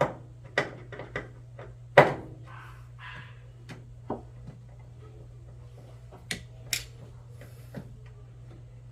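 Scattered knocks, clicks and clatter of hand tools and metal and plastic parts being handled while a front-load washing machine is taken apart, the loudest knock about two seconds in, over a steady low hum.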